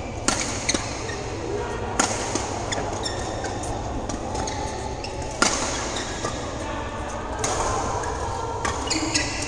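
Badminton rackets striking a shuttlecock: several sharp pops at uneven intervals, the loudest about five and a half seconds in, echoing in a large sports hall over a steady background din.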